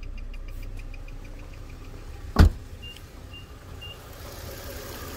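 A Nissan Pathfinder's turn-signal flasher ticks rapidly: hyper flash, because the LED bulbs draw too little current for the relay. The ticking fades out in the first second and a half over the low hum of the idling V6. About two and a half seconds in comes one loud thump, then three short, high beeps.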